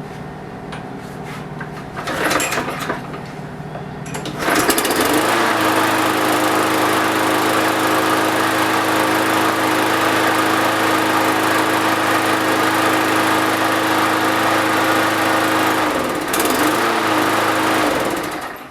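Briggs & Stratton lawn mower engine pull-started after a winter's sitting and a carburettor cleaning: a pull about two seconds in, then it catches about four and a half seconds in, speeds up and runs steadily. It wavers near the end and stops.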